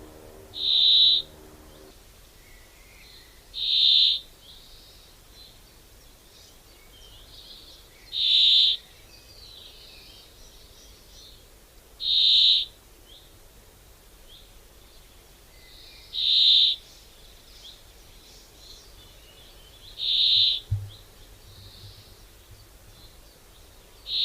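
A bird giving a loud, high-pitched call about every four seconds, seven times, each call lasting under a second, with faint chirps of other birds in between.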